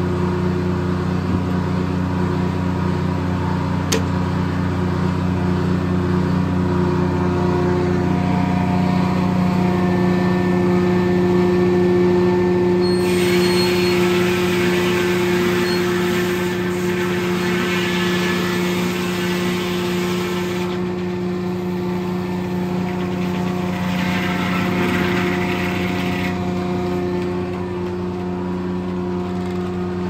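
Corley circle sawmill running steadily under engine power, with a louder rushing hiss from a little before the middle to about two-thirds through, and briefly again later, as the blade cuts through a pine log.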